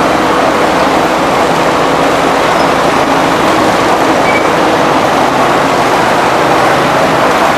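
Sugarcane crushing mill machinery running: a loud, steady mechanical noise with a faint hum underneath.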